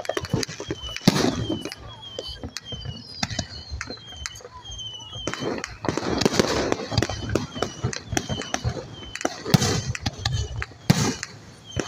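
Fireworks display: aerial shells bursting with sharp bangs and crackle, the loudest bangs about a second in and in the last few seconds.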